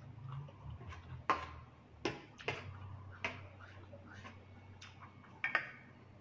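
Close-miked eating: a mouthful of rice noodles in curry being chewed, with about eight wet mouth clicks and lip smacks spread irregularly through, over a steady low hum.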